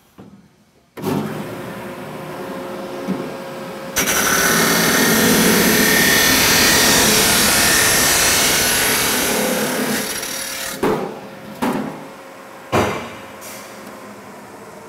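Abrasive chop saw with a 20-inch cutting wheel cutting a steel boiler tube: the motor starts running about a second in, then the wheel grinds through the tube with a loud, hissing roar for about six seconds before easing off. Three sharp knocks follow while the saw keeps running more quietly.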